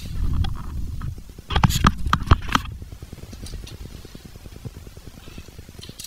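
Hand tools knocking against the metal brake pedal assembly of a Honda CRF110: a quick run of five or six sharp metal clicks and knocks about a second and a half in, then faint handling ticks.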